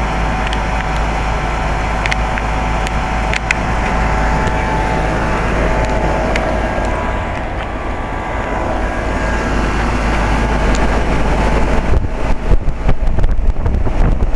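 2004 Carrier 3-ton heat pump outdoor unit running steadily in cooling mode: the compressor and condenser fan make a steady hum with a few steady tones. About twelve seconds in, irregular bumps break into the sound.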